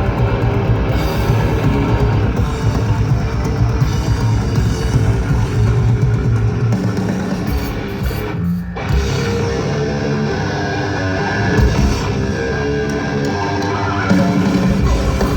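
Death metal band playing live: distorted electric guitars, bass and drums. There is a brief break a little past halfway, and the heavy low end is thinner after it until near the end.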